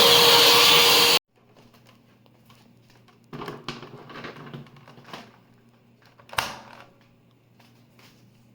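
Vacuum cleaner running with a steady whine, cut off abruptly about a second in. Quiet knocks and clicks of parts being handled follow, with one sharp click past the middle.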